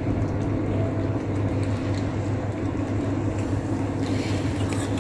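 Steady low hum of a motor vehicle engine running, with a few faint clicks over it.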